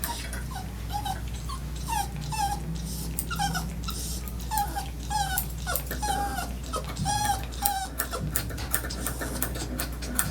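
Dog whimpering and whining in many short high-pitched calls, one after another, from a dog with high anxiety. A steady low hum and scattered clicks run underneath.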